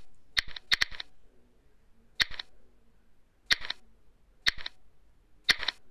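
A series of sharp clicks at irregular intervals, about six in all, several of them in quick pairs.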